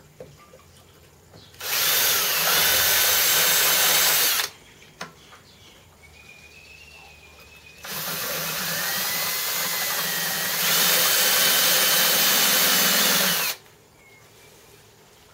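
Electric drill running in two bursts, about three seconds and then about six seconds, with a steady motor whine; partway through the second run it speeds up and gets louder.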